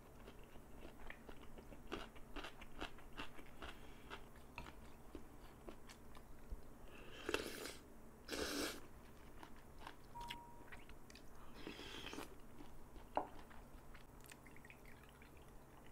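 Close-miked chewing with many small wet clicks, then two loud slurps of instant ramyeon noodles about seven and eight and a half seconds in, and a softer slurp near twelve seconds.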